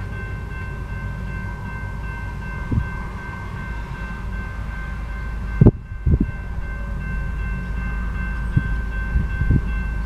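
Railroad grade-crossing warning bell ringing steadily while the crossing gates come down, over a low steady rumble, with a couple of sharp knocks about six seconds in.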